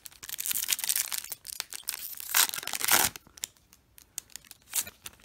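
Plastic Magic: The Gathering booster pack wrapper being torn open, with a crackling, crinkling tear for about three seconds that is loudest near the end of the tear. A few lighter crinkles follow as the opened wrapper is handled.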